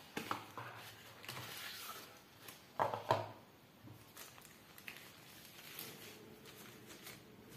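Paper and cardboard packaging being handled: rustling and crinkling of paper inserts and a thin wrapper, with light taps and clicks, the loudest a short crackle about three seconds in.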